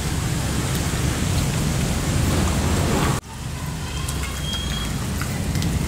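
A hand squelching and squeezing raw boneless chicken pieces in a wet marinade of cornflour, spices and egg white in a stainless steel bowl, a steady crackly wet noise. It breaks off abruptly about three seconds in, then resumes.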